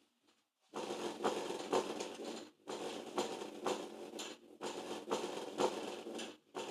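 Subwoofer popping and crackling with dense rapid pops, starting about a second in and dipping briefly every couple of seconds.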